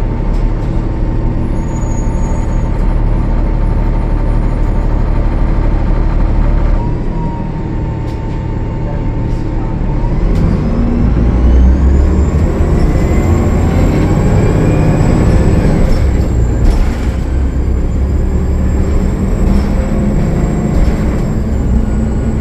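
Cummins ISL9 diesel engine of a 2013 Gillig Low Floor bus running low and steady, then from about ten seconds in pulling hard under power, with a high turbocharger whistle rising and then holding steady. The engine has a turbo leak.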